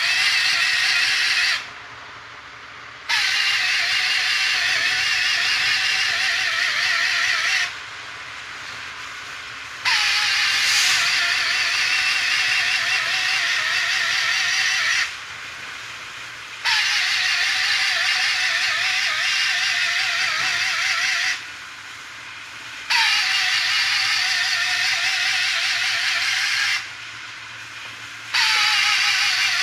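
A small motor running with a loud hiss, in five stretches of four to five seconds separated by short pauses. Each time it restarts, its whine begins slightly higher and settles lower, wavering as it runs.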